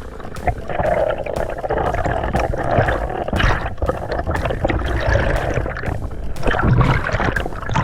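Water rushing and gurgling, a dense sloshing noise with many small splashes or bubbles.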